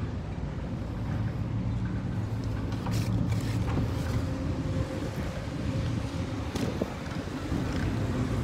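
Steady low outdoor background rumble with a couple of faint knocks.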